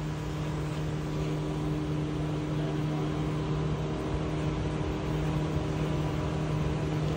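A steady machine hum: a low drone with a few fainter, higher steady tones above it, over an even background hiss.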